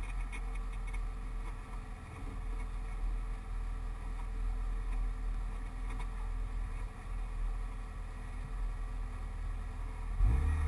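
Mitsubishi Lancer Evolution VI Tommi Mäkinen Edition's turbocharged four-cylinder engine idling steadily, heard from inside the cabin. It revs up sharply about ten seconds in.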